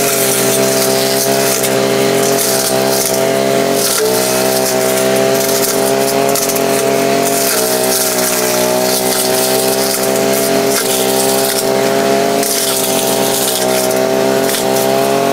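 Maruyama MBS420RS 43 cc two-stroke engine brush cutter running steadily while its blade cuts weeds and woody stems. The engine pitch sags briefly about four and about seven and a half seconds in.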